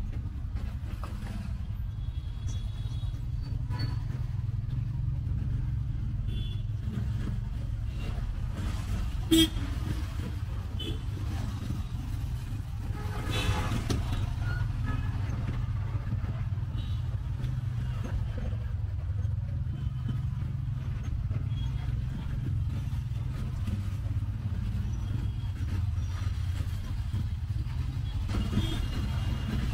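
Steady low rumble of an auto rickshaw's engine and road noise during a ride through traffic, with a few short horn toots. A single sharp click about nine seconds in.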